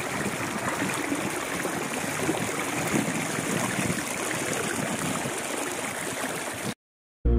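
Shallow stream running over rocks and pebbles: a steady rush of flowing water that cuts off abruptly near the end.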